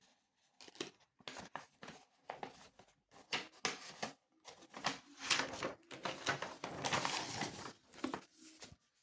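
Paper rustling and crinkling in a run of irregular bursts for several seconds.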